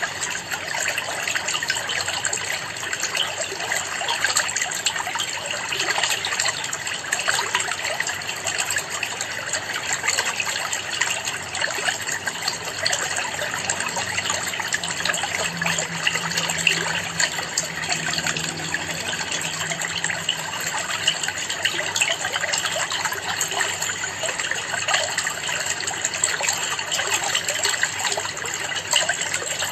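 Water trickling and splashing steadily in a planted aquarium, a dense, even patter of small splashes.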